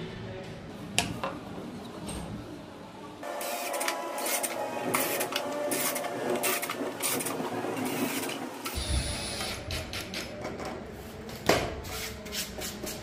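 A small motor-driven machine whirring with a rapid mechanical clatter, with a sharp click about a second in and a louder knock about 11.5 seconds in.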